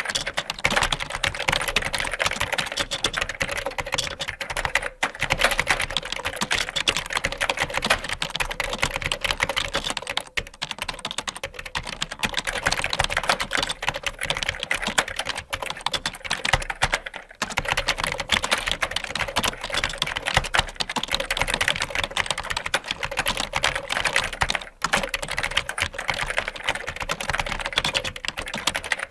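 Fast, continuous typing on a computer keyboard: a dense stream of key clicks, broken by a few brief pauses.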